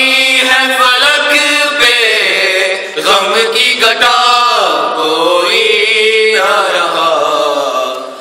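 Men's voices chanting an Urdu noha, a Shia mourning lament, in a slow, melodic recitation with no instruments.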